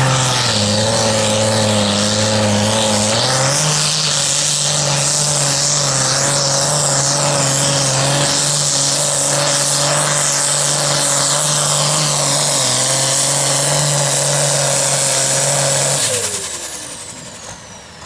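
Pulling tractor's engine running loud at full throttle under the load of a pull. Its pitch dips briefly and climbs back a few seconds in. Near the end the throttle is cut, and the engine dies down with a falling whine.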